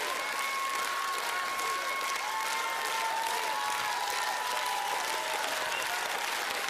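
Large theatre audience applauding steadily, with long drawn-out cheers held over the clapping.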